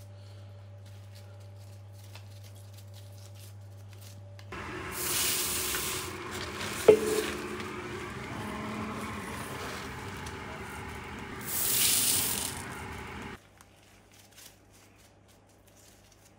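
A hand stirring and raking through dry rice grains in a large stainless-steel bowl: a rustling hiss that starts about four seconds in, swells twice, and cuts off abruptly after about nine seconds, with a single sharp knock partway through. Before and after it, a low steady hum.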